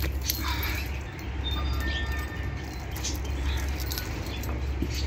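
Small bell on a dangling cat toy jingling lightly in short, irregular bursts, over a steady low hum.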